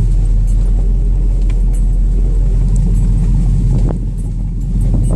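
Chevy 2500 pickup's 6.0-litre V8 running with a loud, low rumble heard inside the cab as the truck crawls over a rough dirt trail, with a few light knocks from the bumps. The engine eases off about four seconds in, then picks up again.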